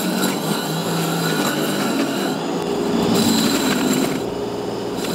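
Stihl RLA240 battery scarifier running as it is pushed across a Kikuyu lawn, its solid blades slicing through the grass runners: a steady motor hum with a thin high whine over it, a little louder for a second or so past the middle.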